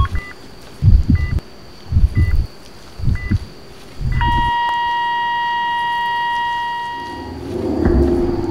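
Heartbeat sound effect: heavy low thumps about once a second, each with a short heart-monitor beep. About four seconds in, the beats stop and a steady monitor flatline tone sounds for about three seconds, signalling the heart has stopped. Near the end a low rush of noise swells up.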